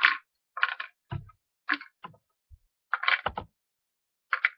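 Small plastic toy food pieces and parts of a toy doll fridge being handled: about six short clattering rustles, two of them with a dull knock, about a second in and a little after three seconds in.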